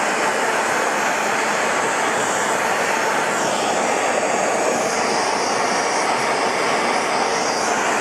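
TS8000 MAPP gas torch burning with a steady, loud hiss while it heats flux-coated bike-chain joints for silver soldering.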